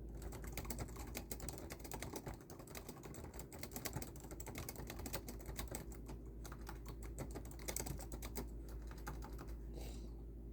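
Fast typing on a computer keyboard: a dense run of key clicks, pausing briefly about six seconds in, with a short hiss near the end.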